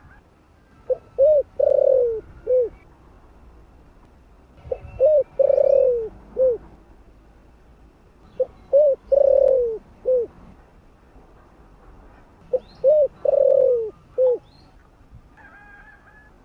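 Spotted dove cooing: four phrases about four seconds apart, each a couple of short coos, a longer coo that falls away at its end, and one short closing coo.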